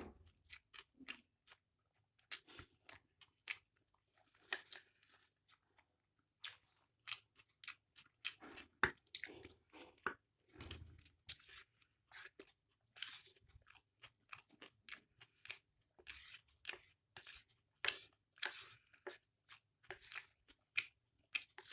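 Close-up chewing of a mouthful of chow mein and salad, with short, irregular crunchy bites and wet mouth noises, about one to two a second.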